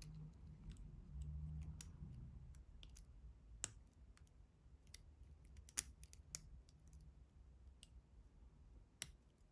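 Faint, irregular small clicks of a lock pick and tension tool working the pins inside a Master Lock Pro Series 6850 lock, a dozen or so scattered ticks with a few sharper ones.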